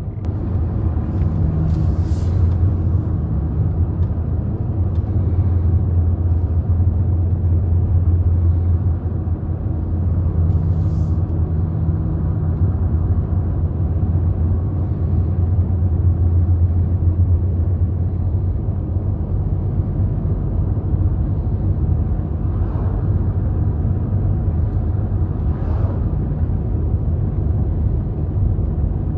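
Car driving along a highway: a steady low rumble of engine and road noise with no change in speed.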